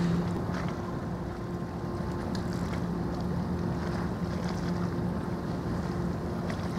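Ro-ro passenger ferry Ferry Osaka II's engines humming steadily as it passes, a low drone across the water, mixed with wind noise on the microphone.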